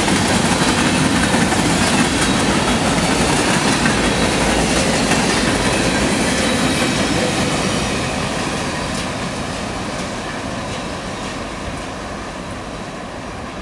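Freight train cars rolling past: a steady rumble of wheels on rail with repeated clicking. It fades away from about eight seconds in as the last car goes by and moves off down the track.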